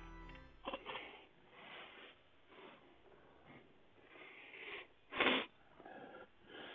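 Quiet room with faint rustles of movement and one short, sharp sniff about five seconds in.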